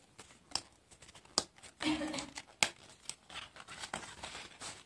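Die-cut pieces being pressed out of a printed cardboard sheet by hand: irregular sharp snaps of the card tabs breaking, with light paper rustling between them.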